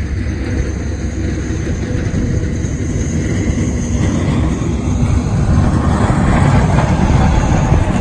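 Strong snowstorm wind buffeting the microphone: a loud, low, steady noise that grows louder through the second half.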